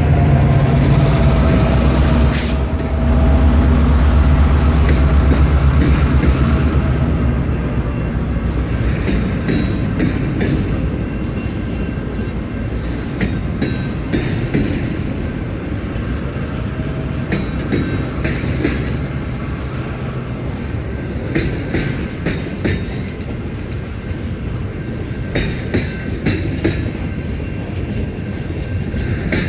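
Canadian Pacific GP38-2 diesel locomotives' EMD two-stroke engines running loud and low as they pass, fading after about seven seconds, then freight cars rolling by with wheels clicking over rail joints.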